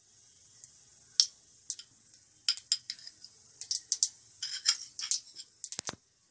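Cumin seeds and bay leaves frying in hot oil in a kadhai: irregular small crackles and pops as the cumin browns.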